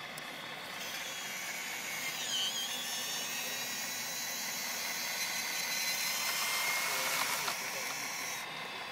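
Small electric motors of radio-controlled model construction machines whining over a steady hiss, with a brief wavering whine about two seconds in.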